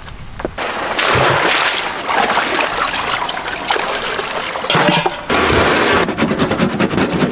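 Water pouring and splashing as a gutted black chicken is rinsed by hand. In the last couple of seconds, after a short break, an orange is rubbed over a metal grater, a steady rasping.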